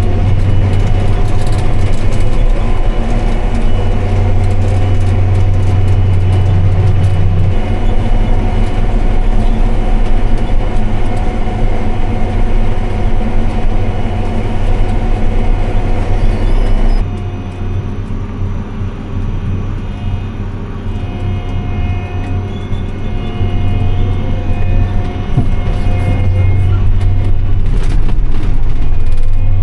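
Farm tractor engine running steadily under load with a low, even hum. About seventeen seconds in, the sound changes abruptly and drops in level, then builds back up.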